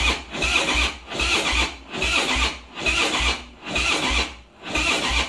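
Harley-Davidson V-twin's electric starter cranking the engine slowly, labouring in a heavy heave about once a second with a deep double thump in each, and the engine never firing. This is the sign of a flat motorcycle battery.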